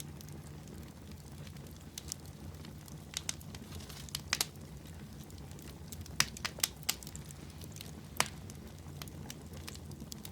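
Campfire crackling: irregular sharp pops and snaps over a low, steady rumble.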